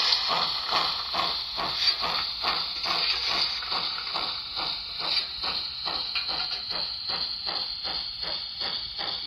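Model steam locomotive's sound running: rhythmic chuffs, about three a second and easing slightly toward the end, over a steady hiss.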